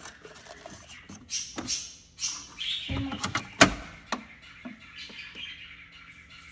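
Clicks, scuffs and knocks as a glass mug and a single-serve coffee maker are handled, with one sharp loud knock a little past halfway.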